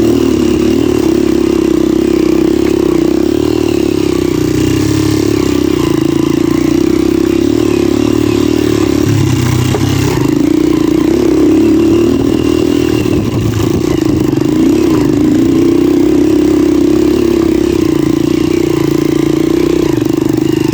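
Motorcycle engine running steadily as the bike is ridden, its pitch wavering briefly about two-thirds of the way through, over steady wind and road noise.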